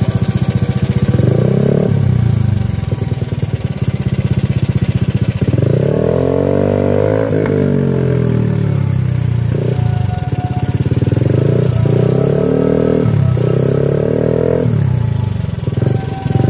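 Modified Yamaha Aerox scooter's single-cylinder engine through a loud aftermarket open exhaust (knalpot brong), idling and blipped by hand about five times. There is one longer rev-up and fall around six to eight seconds in, and it drops back to idle between blips.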